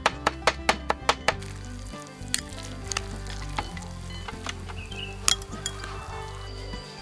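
Rapid knife chopping on a cutting board, about five strokes a second, stopping about a second and a half in. Then food sizzling in a hot pan with a few clinks of a utensil.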